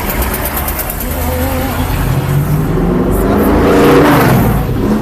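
A race car drives past at speed, its engine note growing louder and rising in pitch, then dropping as it goes by near the end.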